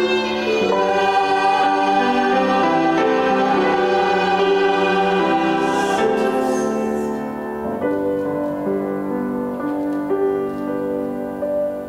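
Church choir singing a slow hymn in sustained notes with violin accompaniment. About eight seconds in, the voices fall away and the music goes on more quietly.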